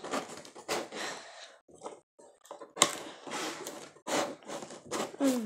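Cardboard box and its packing being handled: irregular rustling and scraping with knocks, and one sharp knock about three seconds in.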